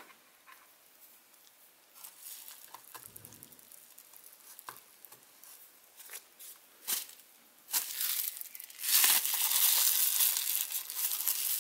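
A few light clicks and taps as small cable connectors are handled, then from about nine seconds in a loud, continuous crinkling of plastic bubble wrap being pressed and packed into a plastic junction box.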